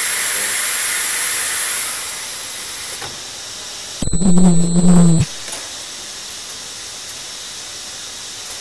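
Multihead ultrasonic welding machine for a plastic car bumper: compressed air hisses loudly from its pneumatic cylinders and stops about two seconds in. About four seconds in, a loud steady buzz lasts about a second as the ultrasonic heads fire on the plastic.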